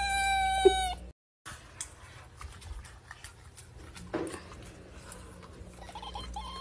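A cat's long, drawn-out yowl, 'eğeeee', held at one pitch for about a second and cut off abruptly; after it come faint clicks and rustles, with one brief louder sound about four seconds in.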